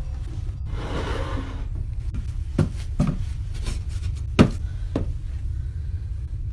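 Loose wooden floorboards being handled: a soft rustle about a second in, then five sharp wooden knocks, the loudest just past the middle, over a steady low rumble.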